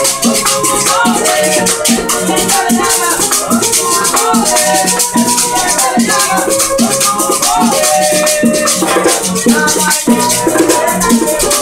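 Small acoustic group playing a lively tune: maracas shaken in a fast, steady rhythm over plucked guitar strings and a moving string melody.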